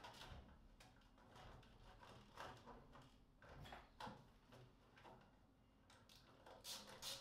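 Faint clicks and taps of a flexible dust hose and its clip being handled on a table saw's blade guard port, then a quick run of small clicks near the end as the hose clip is tightened down.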